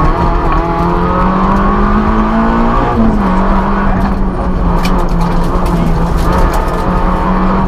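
Citroën Saxo N2 rally car's four-cylinder 1.6 16-valve engine running hard under load, heard from inside the cabin. Its note rises in pitch, drops sharply about three seconds in, then holds steady.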